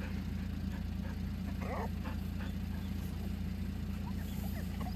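Kei mini truck's small engine idling steadily.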